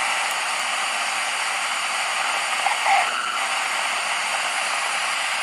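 Steady static hiss from a DIY FM stereo radio kit's speaker, tuned to 87.0 FM where no station comes in.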